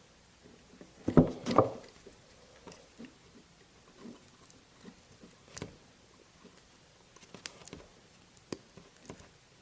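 Handling noises from small hand tools and wiring: a loud flurry of clicks and rustling about a second in, then scattered single light clicks.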